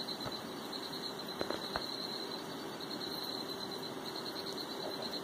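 Crickets chirping steadily in the background, a fast pulsing high trill. Two soft mouse clicks come about a second and a half in.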